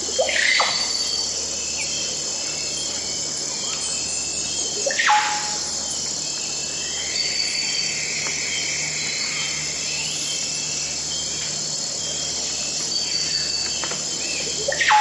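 Tropical rainforest dawn ambience: a dense, steady chorus of insects, high in pitch. A few louder bird calls sweep down in pitch about half a second in and around five seconds, and again near the end.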